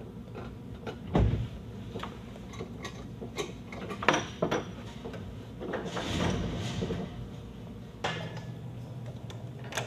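Steel chain and metal fittings clanking and knocking as a chain is fastened under a vehicle, a string of separate clanks with a heavy thump about a second in and a sharp clank about four seconds in.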